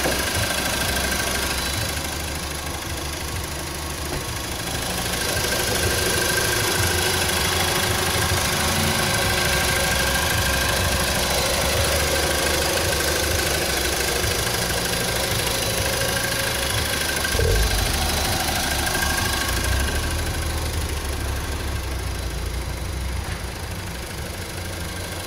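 Audi A3 2.0 FSI four-cylinder petrol engine idling steadily, heard close up in the open engine bay.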